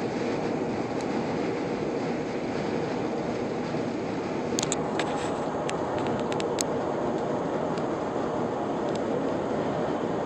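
Steady road and wind noise inside a Lexus cabin cruising at highway speed, with a few light clicks about halfway through.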